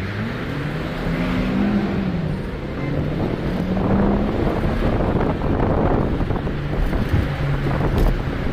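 Car engine and tyre noise from a vehicle driving in highway traffic, the engine note rising and falling as it speeds up and eases off, with wind rushing over the microphone.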